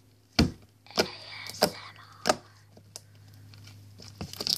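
Homemade glitter slime squeezed and pressed between hands, giving a series of sharp pops and clicks, about four in the first half and a quick cluster near the end.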